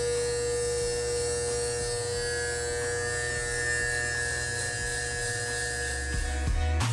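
Electric hair clippers buzzing steadily as they trim hair, stopping near the end, with music faintly underneath.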